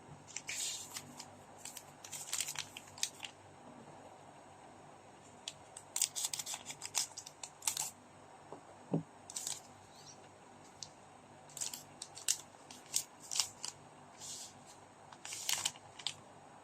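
Trading cards and their foil packs being handled: a string of short, irregular scraping and rustling sounds, some coming in quick clusters.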